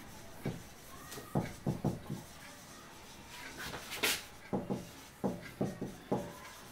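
Marker writing on a whiteboard: a series of short strokes and taps with brief pauses between them, one sharper tap about four seconds in.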